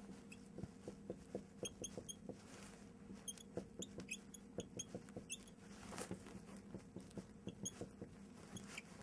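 Marker writing on a whiteboard: a string of faint, short squeaks and ticks as numbers are written, over a low steady hum.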